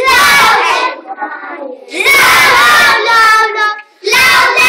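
A group of young children singing together in English, in loud phrases with brief pauses between them.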